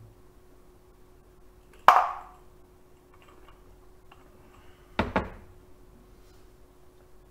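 A drinking glass set down on a table: a quick double knock about five seconds in. A sharper, louder clack with a short ring comes about two seconds in.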